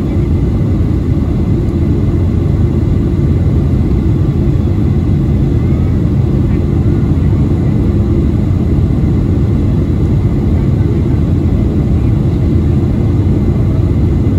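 Cabin noise inside a Boeing 737-800: a loud, steady rush of airflow and CFM56 turbofan engine noise, heaviest in the low range, with faint steady tones above it.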